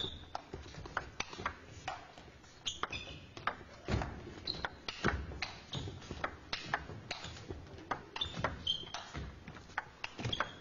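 Table tennis ball clicking off bats and table during rallies, a sharp irregular series of pings, with a few short high squeaks.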